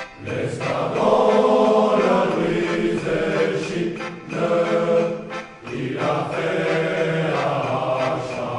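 Choir singing a slow, chant-like song in long held phrases, with brief pauses between phrases.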